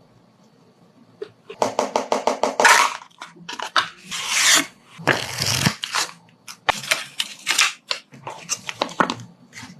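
Phone packaging being handled during an unboxing: runs of rapid sharp clicks or taps, broken by several short rustling or scraping bursts of cardboard and plastic.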